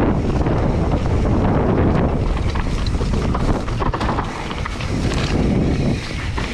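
Wind buffeting the camera microphone over the rumble of mountain bike tyres rolling fast on dry, loose dirt, with scattered clicks and rattles from the bike over bumps.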